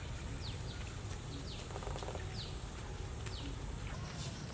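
Rural outdoor ambience: a bird giving short, downward-sliding calls about five times over a steady high-pitched insect drone and a low rumble. The drone stops shortly before the end.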